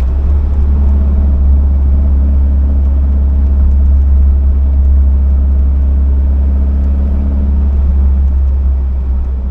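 Pilgrim Sumo Cobra-replica kit car's engine and exhaust running at a steady cruise: a loud, deep, even drone that holds steady throughout.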